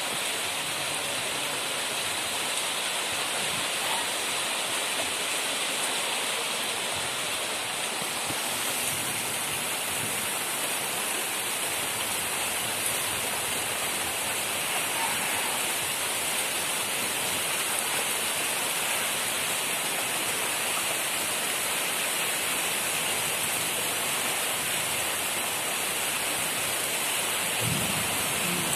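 Steady rain falling, an even, unbroken hiss of rainfall.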